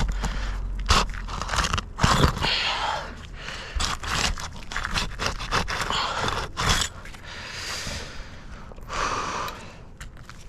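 Roof shingle being pried up and pulled loose: irregular scraping and crunching with short knocks, easing off near the end.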